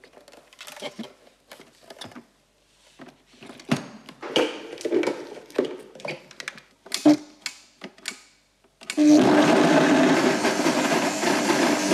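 Plastic jar and lid of an electric blender clicking and knocking as they are fitted into place, then about three-quarters of the way in the motor starts and runs steadily, chopping a thick chickpea and beetroot mix for hummus.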